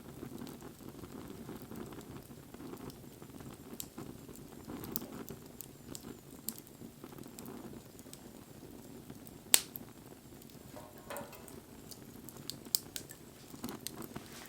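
Wood fire burning, with a steady low rustle and scattered crackles; one sharp, loud pop a little past the middle and another smaller one near the end.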